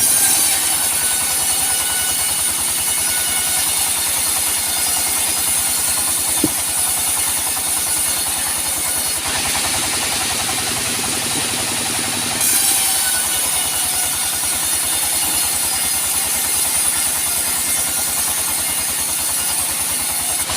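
Sawmill running steadily while sawing teak, its engine beating evenly under a high hissing whine from the cut. The high part of the sound shifts twice, a little before and a little after the middle.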